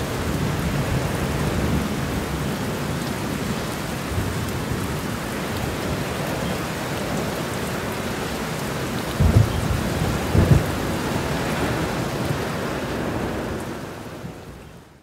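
Thunderstorm: steady rain with low thunder rumbles, two stronger rumbles coming about a second apart a little past halfway. The rain fades out near the end.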